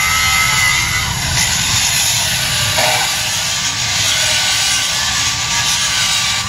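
A 9-inch angle grinder grinding metal for weld prep, running loud and continuous; a high whine in the first second fades as the disc bites into the work.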